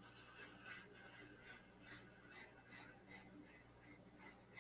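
Faint, soft scraping repeated about two or three times a second: ring magnets sliding over the tabletop as one is nudged toward the other by a finger.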